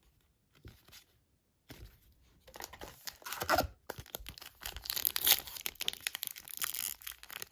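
Plastic wrapper of a trading-card pack crinkling and tearing open, with many small sharp crackles. It starts about two seconds in after a near-quiet start, and keeps going.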